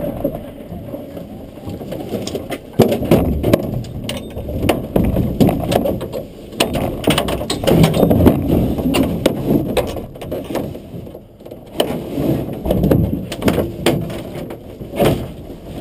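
Wind buffeting the onboard camera's microphone, an uneven rumbling that swells and drops, with scattered clicks and knocks. The race car's engine is not running.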